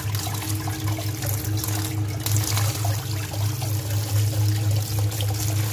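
Cold water pouring onto boiled elbow macaroni in a stainless steel colander and draining through its holes, a steady splashing trickle. A steady low hum runs underneath.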